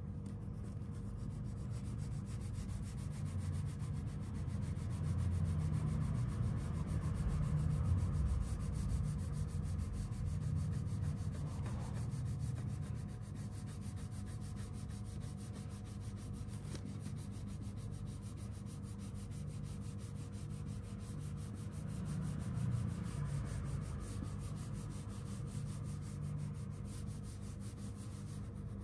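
Wax crayon rubbing back and forth on paper in quick shading strokes, a continuous scratchy rubbing that grows louder for a few seconds about a quarter of the way in.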